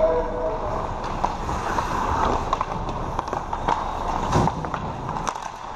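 Ice hockey skates scraping and carving across rink ice, with scattered sharp clacks of sticks and puck.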